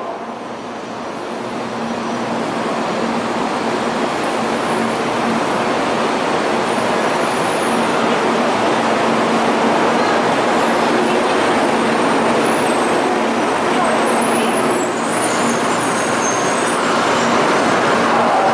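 Kyushu Shinkansen train pulling into the station, its rushing noise swelling over the first few seconds and then holding as it slows alongside the platform. Thin high squeals of braking wheels come in near the end.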